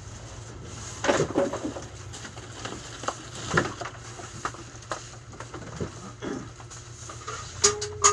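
Irregular clattering and rustling of plastic goods and bags being handled and moved, with louder knocks about a second in, around three and a half seconds in and near the end, over a steady low hum.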